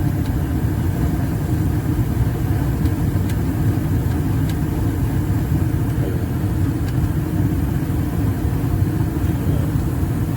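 Residential 80% natural-gas furnace running with its burners lit: a steady low rumble of the burner flames and inducer motor, with a few faint ticks.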